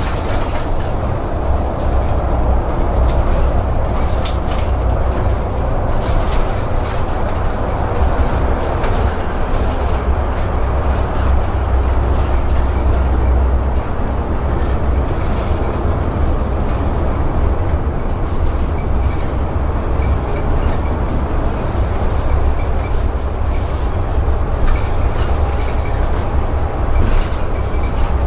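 Cabin noise inside a city bus driving through a transit tunnel: a steady low rumble of the drivetrain and road, with scattered clicks.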